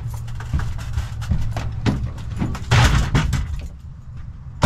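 Rummaging in the back of a work van: hard plastic toolboxes and loose parts clattering and knocking in a string of short clicks, with the loudest rattle a little before the middle.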